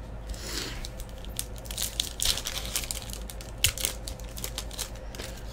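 Foil wrapper of a hockey trading-card hobby pack being torn open and crinkled as the stack of cards is pulled out, with a run of irregular sharp crackles.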